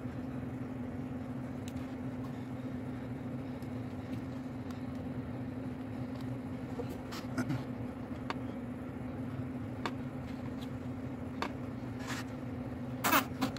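A steady low hum with a few short clicks and taps as wire terminals are handled and fitted onto a component mounted on a go kart's metal plate, the sharpest clicks near the end.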